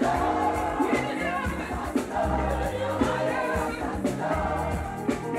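Live gospel band music with singers over a steady beat and bass line.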